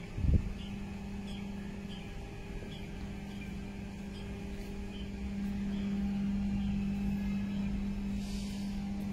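A truck's diesel engine idling with a steady hum that grows louder about five seconds in, with a brief thump near the start.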